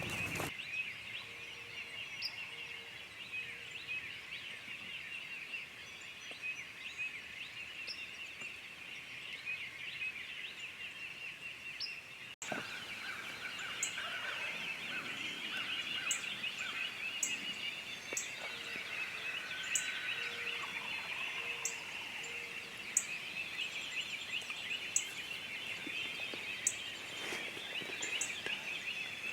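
Wild turkey gobbling over a steady background chorus of rapid high chirps, with scattered sharp high bird calls.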